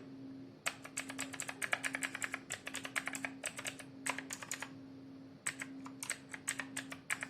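Redgear Shadow Blade MK853 mechanical keyboard with clicky blue switches being pressed in quick runs of key clicks, with a short pause about two-thirds of the way through. A steady low hum runs underneath.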